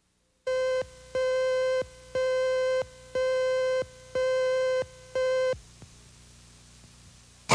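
Six electronic beeps of one steady, buzzy tone, about one a second and each lasting most of a second: a videotape cue tone over a TV station slate. A faint low hum follows the last beep.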